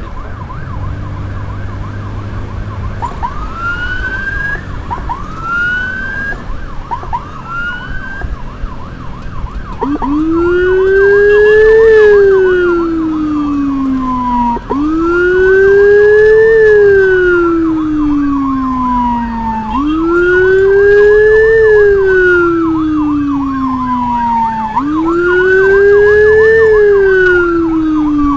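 Electronic emergency sirens on the move. First come a few short rising whoops. About ten seconds in they change to a slow wail that rises quickly and falls off slowly, roughly every five seconds, with a deep lower tone following the same sweep. A faster warbling siren runs underneath throughout.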